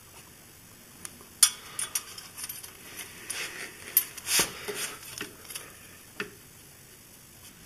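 Metal clinks, clicks and scraping as a strap wrench is handled and fitted around a motorcycle's spin-on oil filter to loosen it. The knocks come irregularly, with two louder sharp clanks about one and a half and four seconds in.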